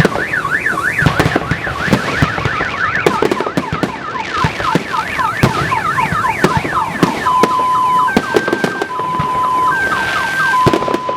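Car alarm sirens sounding: a fast rising-and-falling whoop, about three sweeps a second, that changes about seven seconds in to alternating two-tone beeps. Sharp bangs of exploding fireworks go off throughout.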